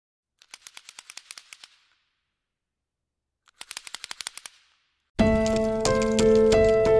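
Two quick runs of sharp, evenly spaced clicks, about a second each, as an intro sound effect over silence. Background music starts about five seconds in.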